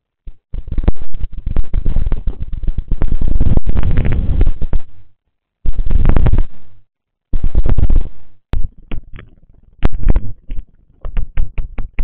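Doorbell-camera microphone audio, heavily overloaded: loud, distorted rumbling in three bursts with silent breaks between them, then a run of sharp clicks and knocks from about eight and a half seconds on.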